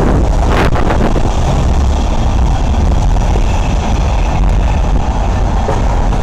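Steady road and wind noise from a vehicle driving, a loud rumble heaviest in the low end.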